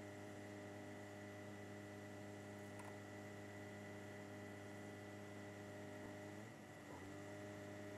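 Faint, steady electrical hum of several pitches, dropping out briefly about six and a half seconds in.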